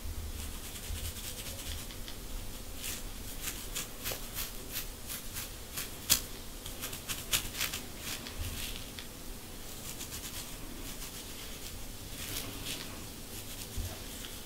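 Rat-tail comb's metal tail scratching along a dry, dandruff-flaked scalp through hair, in quick short strokes that come thickest in the middle and again near the end.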